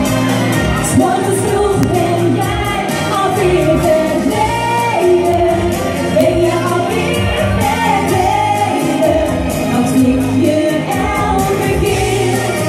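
Live pop song with two women singing into handheld microphones in Dutch, over accompaniment with a steady beat and a stepping bass line.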